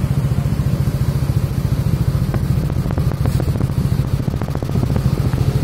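Yamaha Lexi scooter engine idling steadily, with a run of light clicks about halfway through.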